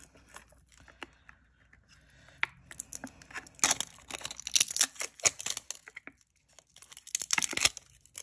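Washi masking tape being peeled off its roll and pulled out, crackling in two spells, a longer one in the middle and a shorter one near the end.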